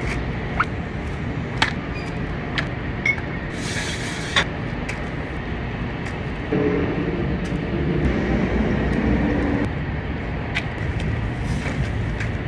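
Steady low rumble of an engine running nearby, with scattered sharp clicks and knocks from cargo straps being thrown over a flatbed load. There is a short hiss about four seconds in, and an added wavering engine hum from about the middle until near ten seconds.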